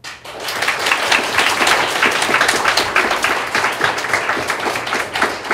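Audience applauding: many hands clapping, starting suddenly and holding steady, then beginning to thin out near the end.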